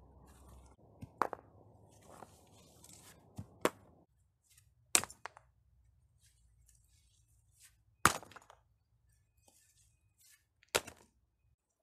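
Rough fieldstones thrown onto a pile of stones, each landing with a sharp clack of rock on rock; about half a dozen knocks at uneven intervals.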